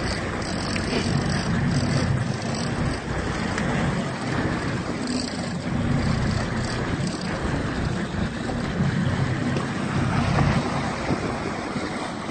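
Fishing boat's engine running steadily underway, with wind buffeting the microphone.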